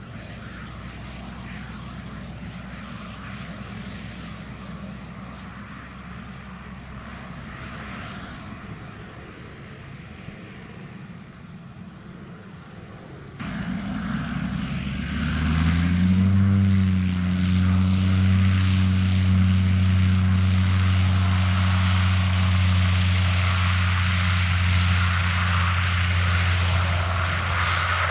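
Zlin Z-137T Agro Turbo crop-dusting plane's turboprop engine running on a distant grass strip as a steady hum. Partway through the sound jumps louder, and an engine winds up over a couple of seconds, then holds a steady low drone.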